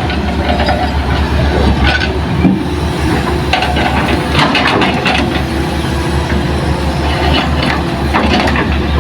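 Hitachi hydraulic excavator's diesel engine running steadily with a low hum, with irregular clattering and scraping over it.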